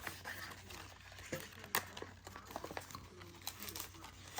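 Faint crinkling of a foil Pokémon card booster pack wrapper and rustling of cards being handled, with a few small, sharp clicks.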